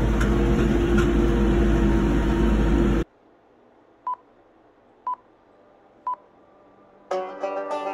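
Tractor engine running steadily, heard inside the cab while it pulls a hay rake. About three seconds in the noise cuts off suddenly to near silence, and three short high beeps follow, a second apart. Banjo music starts near the end.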